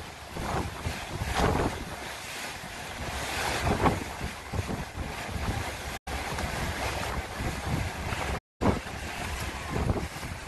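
Wind buffeting the microphone over the rush of choppy water along the hull of a moving motor boat, rising and falling in gusts. The sound cuts out completely for a moment twice, about six seconds in and again past eight seconds.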